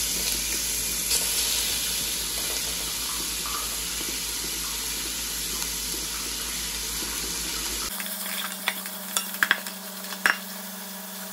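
Oil sizzling steadily in a deep metal pot as shredded boiled chicken is added to sautéing garlic and onion. From about eight seconds in, the sizzle drops away and a wooden spatula stirs and scrapes the pot, with a few sharp clicks against the metal.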